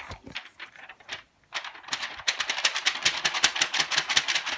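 One person clapping fast and evenly, about seven claps a second, starting about one and a half seconds in.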